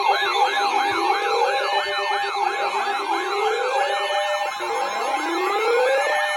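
Several electronic sirens sounding together. A fast yelp rises and falls about three times a second over slower wails that climb in pitch every couple of seconds, with a steady tone underneath.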